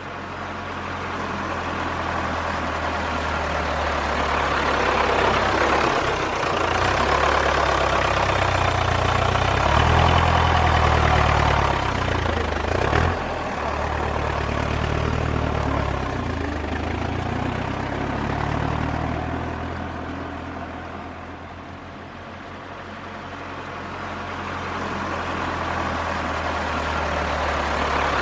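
Diesel tractor engine running, its pitch rising and falling as the revs change, with a brief clunk about thirteen seconds in. It grows louder over the first few seconds, eases off around twenty seconds in, then grows louder again.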